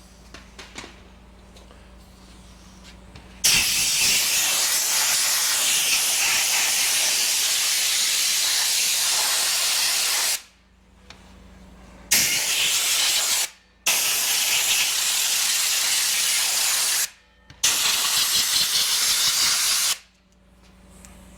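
Compressed-air blow gun blasting air through washed electronic air cleaner collector cells to dry them: four loud blasts of hiss, the first about seven seconds long, the others shorter, with brief pauses between. A faint low hum is heard in the pauses.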